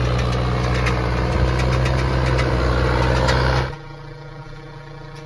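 Mahindra Arjun combine harvester's diesel engine running loud and steady as the machine wades through floodwater. A little under four seconds in, the sound cuts abruptly to a much quieter steady hum.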